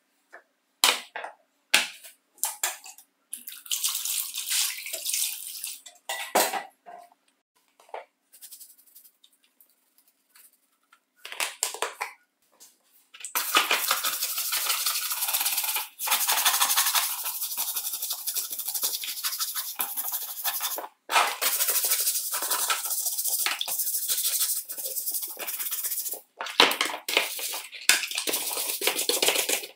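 A stiff hand brush scrubbing the plastic housing halves of a jigsaw in soapy water in a plastic tray: a rapid, scratchy hiss that runs almost without a break through the second half. The first seconds hold a few sharp clicks and knocks, then short stretches of hiss.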